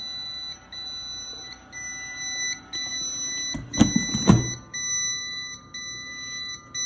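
Electronic incubator alarm beeping: a steady high tone in long beeps, about one a second with short gaps. About four seconds in, two loud knocks of handling sound over it.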